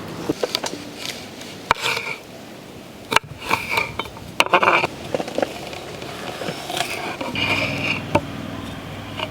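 A knife slicing raw jackfruit into small pieces for frying. The blade gives irregular sharp clicks and short scraping sounds.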